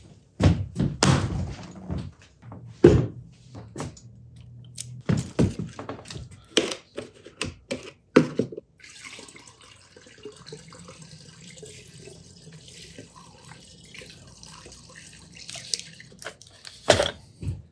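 Clunks and knocks of containers and tools set down on a workbench, then rust remover poured from a cup through a plastic funnel into a gallon jug, a steady trickle lasting several seconds that ends in a couple more knocks.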